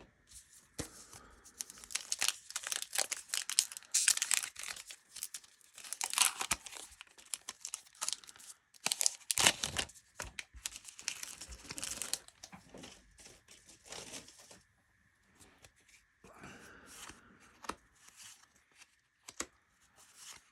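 A trading-card pack wrapper being torn open and crinkled, a dense crackling for the first ten seconds or so. After that come quieter, sparser handling sounds as the cards are taken out and sorted.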